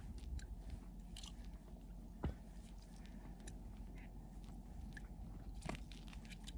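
Faint crunching and rustling with a few scattered small clicks: a fishing line being pulled up hand over hand through a hole in lake ice.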